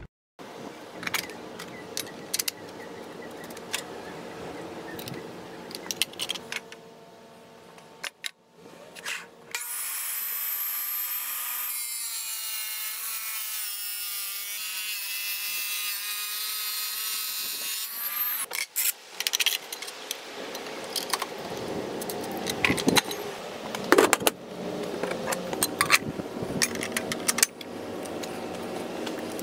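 Wet tile saw with a new 10-inch diamond blade: the motor running, then a loud, high-pitched screech for about eight seconds starting around ten seconds in as the blade cuts through tile, followed by more running and scattered clicks and clinks near the end as the blade is handled.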